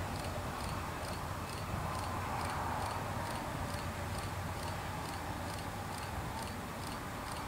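Faint, steady outdoor background noise with a soft, even ticking about four times a second.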